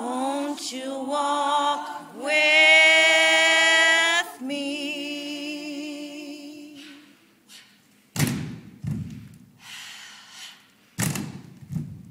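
Unaccompanied gospel singing: a voice holds long notes with a slight waver, the loudest held from about two to four seconds in. The singing fades out past the middle, and several heavy thuds follow in the second half.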